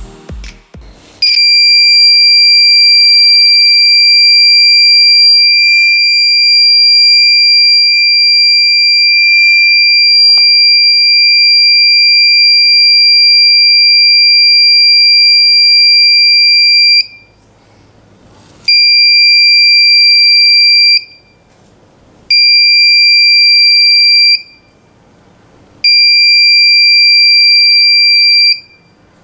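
The buzzer of a simple reed-switch security alarm sounding, which means the alarm is triggered. It gives a steady high-pitched tone that starts about a second in and holds for about sixteen seconds, then cuts off and sounds again in three shorter bursts of two to three seconds each.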